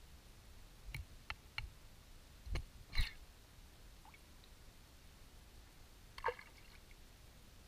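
Underwater sound heard through a camera housing: a faint steady hiss with a scattering of short sharp clicks and knocks, the loudest about three seconds in and another around six seconds.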